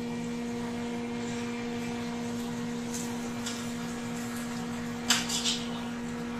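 Steady machinery hum of a ship's galley, with two steady tones. A few short metallic clinks a little after five seconds, as a metal spatula works the frying pastries in the pan.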